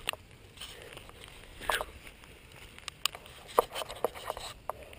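Light rain starting, sparse drops tapping irregularly over a faint steady hiss.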